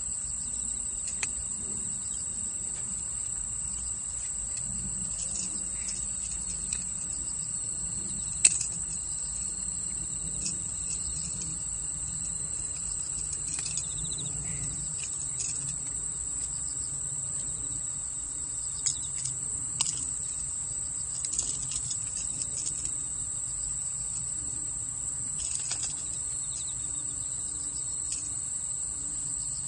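Evening insect chorus trilling steadily at a high pitch without a break. Scattered through it are a few small clicks and knocks, the sharpest about eight seconds in.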